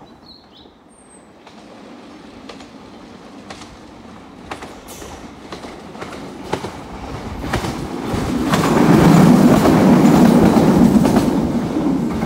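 An ex-London Underground 1938 tube stock electric train approaching and passing close by. The wheels click over the rail joints, louder as it nears, and the running noise swells to a peak about nine seconds in, then starts to ease off near the end.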